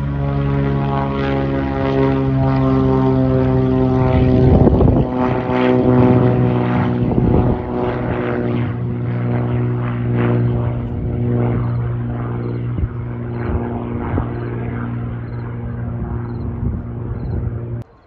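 Small propeller airplane's piston engine and propeller at full power as it takes off and climbs away: a steady drone that is loudest about five seconds in, then slowly falls in pitch and fades. It cuts off sharply just before the end.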